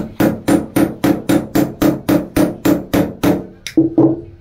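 Hammer blows on a dismantled car starter motor, about four quick metallic strikes a second, each with a short ring, stopping near the end.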